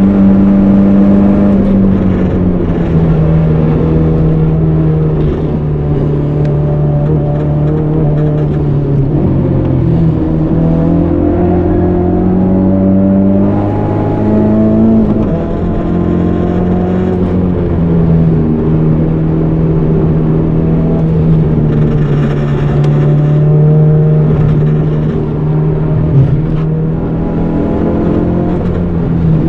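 Turbocharged CA18DET 1.8-litre four-cylinder engine of a 1991 Nissan 200SX S13, heard from inside the car through its custom 3-inch exhaust, pulling hard under load. The engine note rises and falls as the car accelerates, lifts off and shifts, with several pitch drops along the way.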